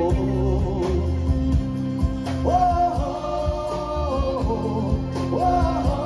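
Band music: a man singing long, held notes over bass, guitar and a steady drum beat.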